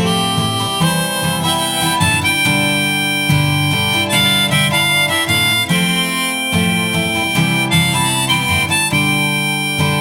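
Harmonica playing a melody of long held notes over strummed acoustic guitar, in a folk song's instrumental ending.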